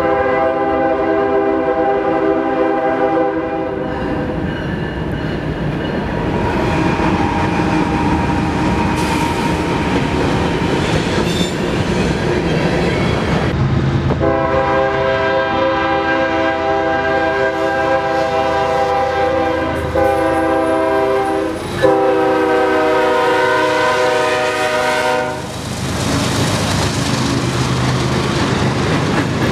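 Nathan K5HL five-chime locomotive air horns sounding long blasts on approaching freight trains. The last blast ends a few seconds before the end, and the rumble and clatter of a passing freight locomotive and cars take over.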